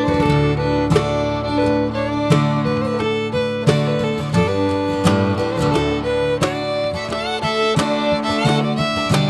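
Background music: fiddle over strummed acoustic guitar, in a country or bluegrass style, with a steady beat.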